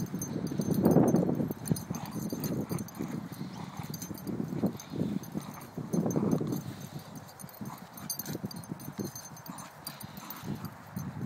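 Two Staffordshire Bull Terriers play-growling while tugging a toy between them, in rough low bursts. The bursts are loudest about a second in and again around six seconds, and weaker near the end.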